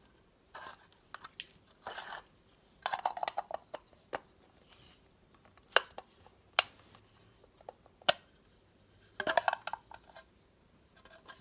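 A small cardboard product box and its packaging being handled: scattered short rustles and scrapes, with a few sharp clicks and taps spaced a second or so apart.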